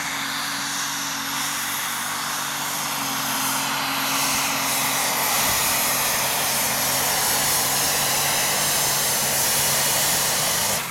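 Triple-turbocharged International super stock pulling tractor's diesel engine running flat out under full load as it drags the weight-transfer sled, with a high steady whine over the engine note. It gets louder about four seconds in and stays at that level.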